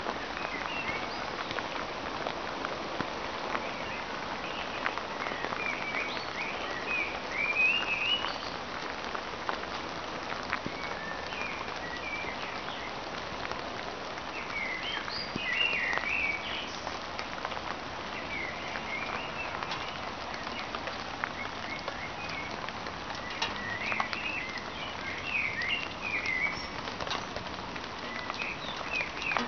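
Light rain pattering on leaves and paving, full of tiny drop ticks. A songbird sings short bursts of phrases over it, about seven, fifteen and twenty-five seconds in.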